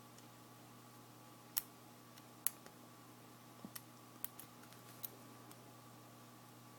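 Scattered small metallic clicks of a lock pick and tension wrench working inside a Sterling five-pin padlock fitted with spool pins, about seven or eight at uneven intervals, the sharpest two about a second and a half and two and a half seconds in.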